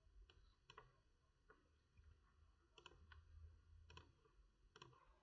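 Near silence with a scattering of faint computer mouse clicks, about eight, some in quick press-and-release pairs.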